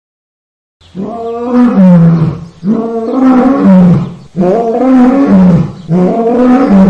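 A lion roaring: four long, loud calls in a row, each dropping in pitch, starting just under a second in.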